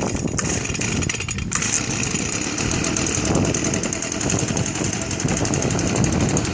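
Stihl BG 55 leaf blower's small two-stroke engine pull-started from cold on choke: the recoil starter cord is pulled, and about a second and a half in the engine catches and keeps running with a fast, even firing rhythm.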